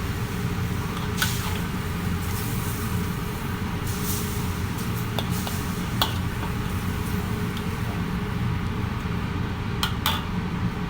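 Steady low background hum, with a few short sharp clicks, the loudest about a second in, at six seconds and twice near the end.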